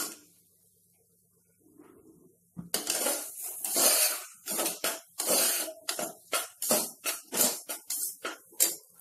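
A steel spoon scrapes and stirs broken wheat roasting in oil and ghee in a metal pressure cooker. After a quiet start, sharp scraping strokes begin about two and a half seconds in and repeat about twice a second.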